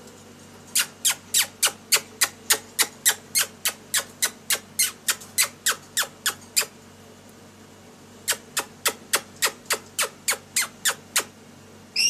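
A caged lory making a rapid series of sharp, shrill calls, about three or four a second. It calls for about six seconds, pauses for over a second, then calls again for about three seconds.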